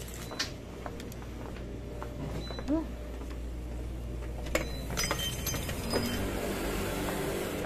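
Scattered clicks and clinks, with a sharp knock about four and a half seconds in as a glass shop door is pushed open, over a steady low hum.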